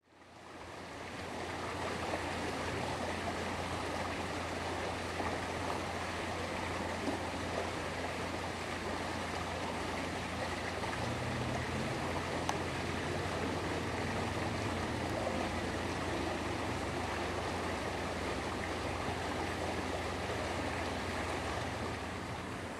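Steady rushing noise with a low steady hum underneath, fading in over the first second or two.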